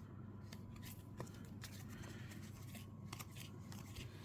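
Baseball trading cards being flipped through by hand: faint, scattered flicks and slides of card stock, over a low steady hum.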